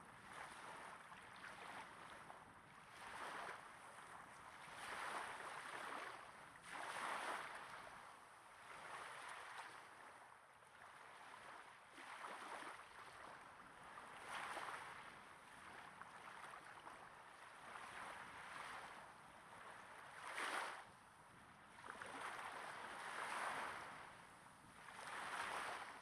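Small waves breaking gently on a sandy beach, recorded at very close range: a soft wash of water that swells and fades every couple of seconds, with one sharper splash about twenty seconds in.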